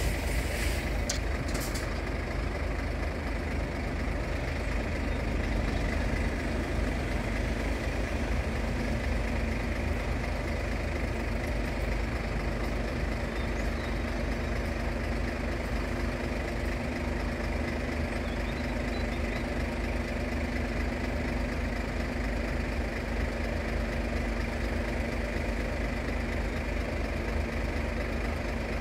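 An engine idling steadily, with a few brief clicks in the first couple of seconds.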